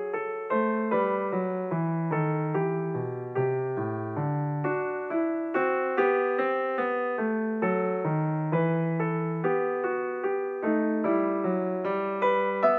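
Background piano music: notes struck about twice a second, several sounding together, each fading before the next.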